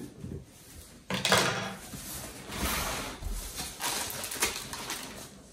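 Plastic wrapping and cardboard rustling and scraping in uneven surges as hands work a bagged speaker in its shipping box, starting about a second in.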